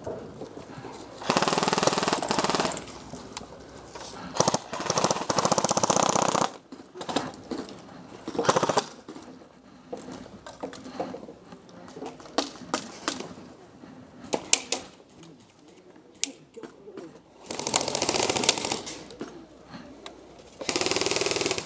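Airsoft electric gun (AEG) firing several full-auto bursts, each a second or two long: a rapid rattling buzz of the motor and gearbox cycling. Scattered sharp clicks and snaps fall between the bursts.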